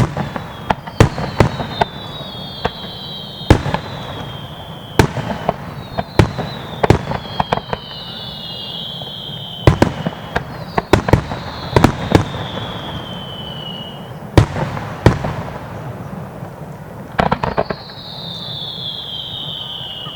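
Aerial fireworks shells bursting with sharp bangs every second or two, some in rapid crackling clusters. Over them run several high whistles that each fall in pitch over a second or two.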